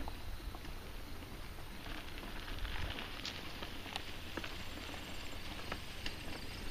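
Mountain bike rolling over a dirt and grass trail: irregular clicks and rattles from the bike over a steady low rumble.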